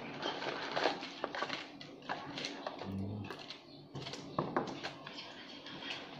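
Cardboard medicine box and its paper insert being handled and opened: crinkling and rustling with sharp clicks and taps, the box set down on a glass counter.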